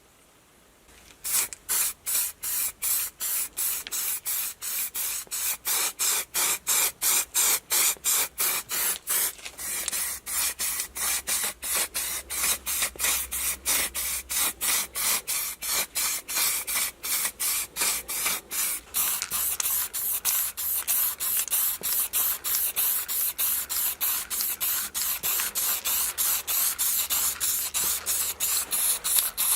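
Rapid rhythmic hissing strokes, about three to four a second, starting about a second in.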